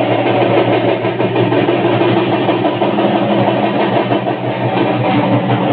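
Loud music with steady, sustained droning tones.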